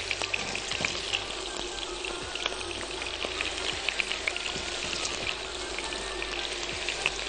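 Potato chunks frying in oil in a wok: a steady sizzle with many fine crackling pops.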